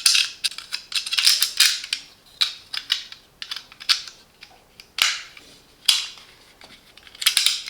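Snap-off blade utility knife being handled as its blade is taken out and refitted: a run of sharp clicks and short scrapes of plastic and metal parts, with clusters near the start and near the end.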